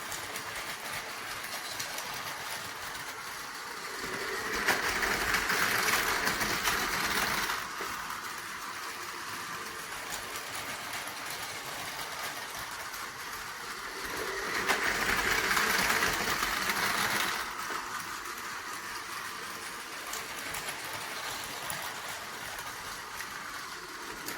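Battery-powered Tomy Plarail toy trains running on plastic track: a steady whir of small electric motors and gears with light wheel clatter. It swells louder twice, for about three seconds each, about five seconds in and again near the middle, as a train passes close by.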